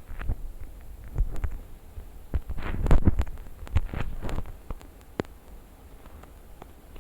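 A run of soft low thumps and sharp clicks, irregular and densest about three seconds in.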